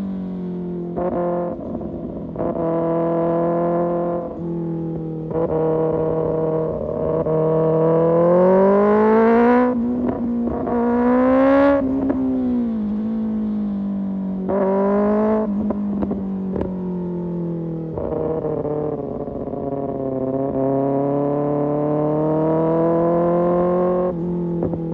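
Kawasaki ZX-6R inline-four engine through an Arrow Pro Race exhaust, revving up and easing off several times. The pitch climbs in steps with short breaks at gear changes, peaks near the middle, then falls back and settles into a steadier run.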